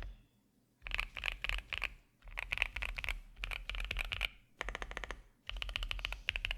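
Fast typing on a qwertykeys QK65 mechanical keyboard with a POM plate, lubed and filmed Prevail Nebula switches and PBT keycaps. The keystrokes come in quick runs of many taps a second, broken by short pauses, the first just after the start.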